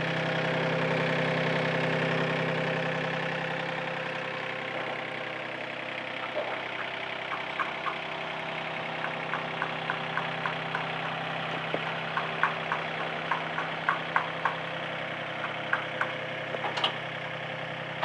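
Small Yanmar diesel engine of a Terberg King Lifter truck-mounted forklift idling steadily, a little louder for the first few seconds before settling. From about six seconds in, scattered sharp clicks sound over it.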